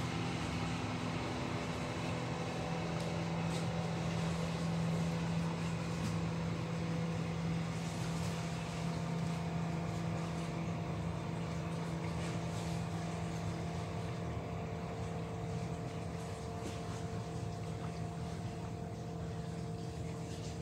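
An engine running steadily, a constant hum with an even hiss over it, easing off slightly in the second half.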